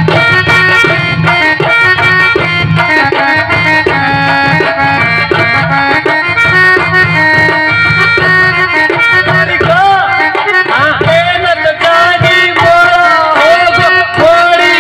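Live folk stage music: a harmonium playing held, reedy chords and melody over a steady hand-drum beat. About ten seconds in, a sliding, wavering melody line comes in above it.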